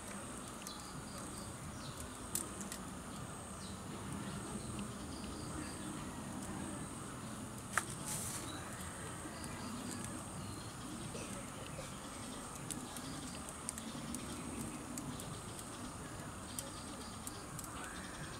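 Garden ambience of insects chirping in a steady, high, pulsing trill, with a few sharp clicks of hand tools as the bonsai is wired and trimmed, the loudest about eight seconds in.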